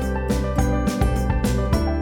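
Background music with a steady beat, keyboard and bass.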